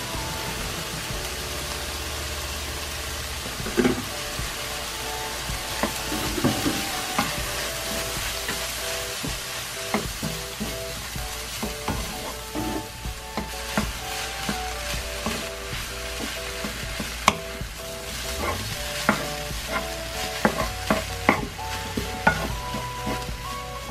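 Food sizzling in a frying pan while it is stirred, with a utensil repeatedly scraping and tapping the pan. A soft instrumental melody plays underneath.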